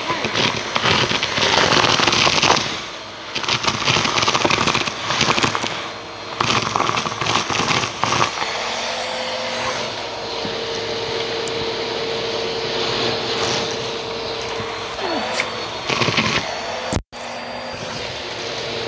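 Vacuum cleaner hose sucking up a pile of cereal pieces, beads and other small debris off a rug, the bits crackling and rattling up the hose for the first several seconds. The motor then runs on with a steady hum, with another short spell of crackling near the end and a split-second cutout.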